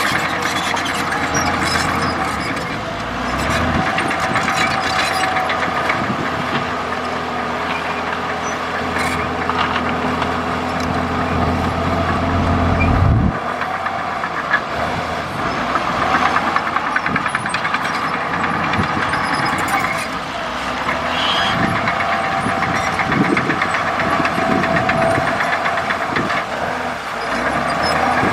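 Komatsu D65E bulldozer's diesel engine running steadily under load, with scattered clanks and cracks. A low drone under the engine cuts off suddenly about halfway through.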